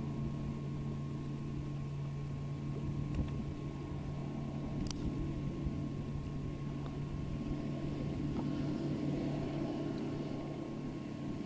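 Boat motor idling, a steady low hum that holds an even pitch, with one sharp click about five seconds in.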